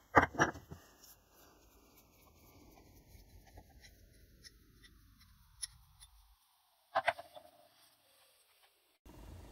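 The rusty handle and screw of an old vice dropped onto a concrete floor, clattering twice. Quiet handling of the metal vice parts follows, with a short double clank near the end.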